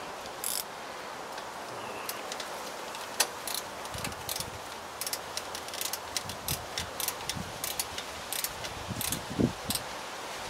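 Light metallic clicks and clinks, irregular and coming in quick clusters, as a small socket and bolt are worked and tightened by hand, over a steady background hiss, with a couple of dull knocks near the end.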